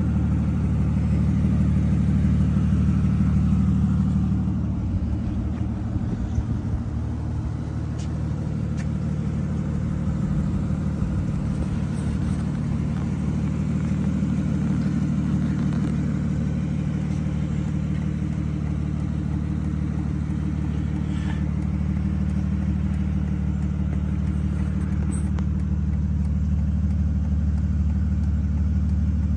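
Aston Martin Rapide S's V12 engine idling steadily, a low even hum that dips slightly about five seconds in.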